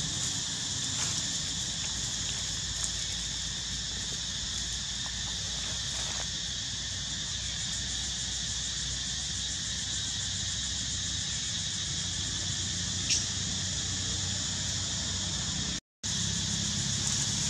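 Steady chorus of insects droning without a break, with one short sharp click about 13 seconds in and the sound cutting out for a moment near the end.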